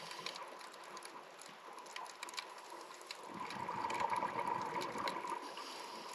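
Underwater recording of a scuba diver's breathing: a bubbling rush of exhaled air from a regulator begins a little past halfway and fades near the end, over a steady faint crackle of clicks in the water.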